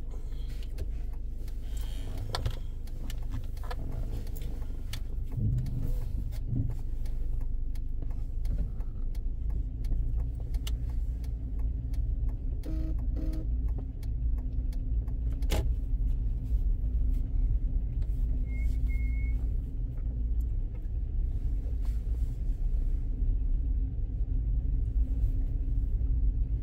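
Car engine and road noise heard from inside the cabin as the car pulls away and drives on: a steady low rumble that grows slightly louder. There are a few clicks in the first seconds and a short faint high beep about two-thirds of the way through.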